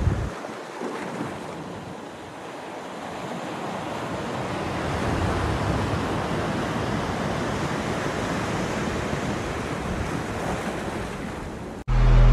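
Sea surf breaking and washing over a rocky shore, a steady rush that swells a few seconds in, with wind buffeting the microphone at the start. Near the end it cuts off suddenly into loud intro music with a low throbbing beat.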